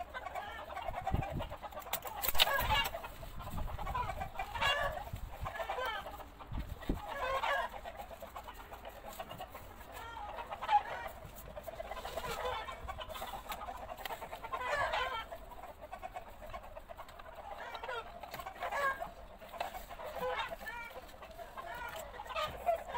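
Chickens clucking over and over, with a few low thumps in the first several seconds.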